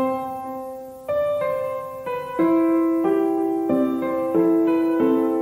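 Background piano music: slow notes and chords struck every second or so, each left to ring and fade.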